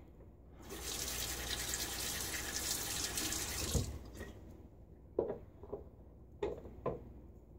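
Bathroom sink tap running for about three seconds, then shut off, followed by four short light knocks.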